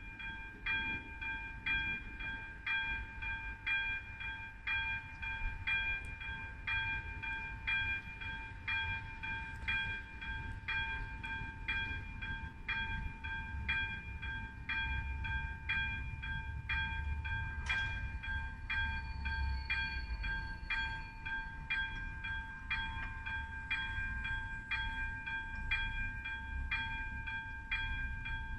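Electronic warning bell of an AŽD 71 level crossing ringing, a steady electronic ding repeating just under twice a second: the crossing is active, warning of an approaching train. A low rumble swells under it in the middle.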